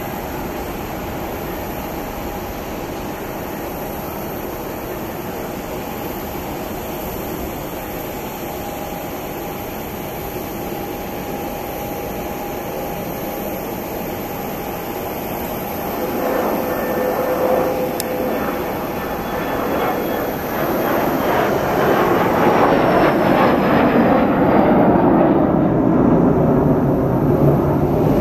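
Gulfstream G150 business jet taking off, its twin Honeywell TFE731 turbofans at takeoff power. A steady distant jet hum fills the first half; from about halfway it grows much louder as the jet lifts off and climbs past, with a falling whine, and ends as a loud, steady rush of jet noise.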